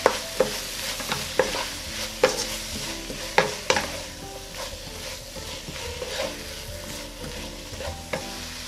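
Sliced onions stir-frying in a nonstick pan: a steady sizzle, with a wooden spatula scraping through them and knocking sharply against the pan at irregular moments, a few times a second at its busiest.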